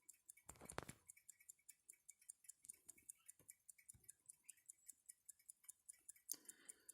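Alpina pocket watch running, a faint, fast, even ticking of about five ticks a second. A brief soft noise comes just under a second in.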